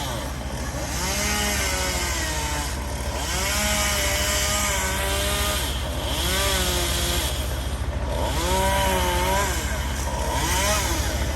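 Chainsaw cutting tree limbs, its pitch rising and falling every second or two as the throttle is opened and eased off. A steady low engine rumble runs underneath.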